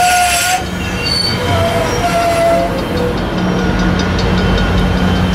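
Metrolink commuter train's bi-level passenger coaches rolling past close by: a steady wheel-and-rail rumble with thin, wavering wheel squeals on and off, and a short burst of hiss at the start.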